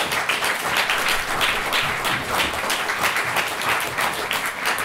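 Audience applauding: many hands clapping at once.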